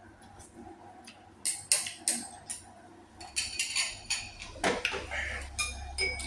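Tableware clinking during a meal: utensils knocking against dishes, a few scattered clicks and then a quick run of clinks with short ringing tones in the second half.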